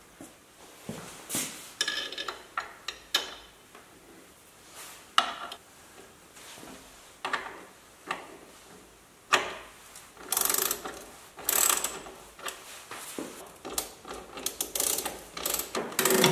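Hand ratchet with a socket on an extension turning bolts into the rear suspension mounting: short, irregular runs of ratcheting clicks mixed with metal clinks of tool and parts, busier in the second half.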